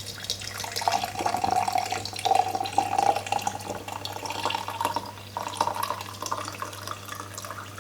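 Strained ginger, clove and cinnamon water being poured into a small jar of sugar syrup: a steady trickle of liquid whose pitch rises slowly as the jar fills.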